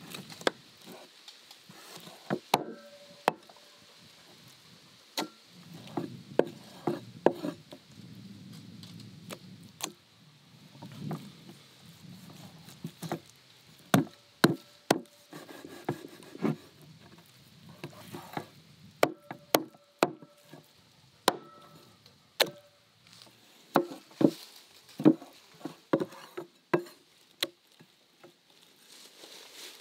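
Heavy meat cleaver chopping wild boar meat and ribs on a wooden chopping board: sharp, irregular knocks of the blade striking the wood, often several in quick succession.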